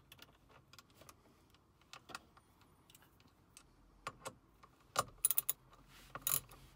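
Small metal Torx bit and driver clicking and rattling as the bottom screw in the back of the steering wheel is fitted and hand-tightened. A few faint clicks at first, then quick runs of sharp clicks about five seconds in and again near the end.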